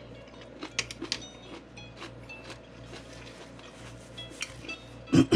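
Someone chewing crunchy marinated jellyfish poke: irregular crisp crackles and clicks. Near the end comes a short loud voiced sound that falls in pitch.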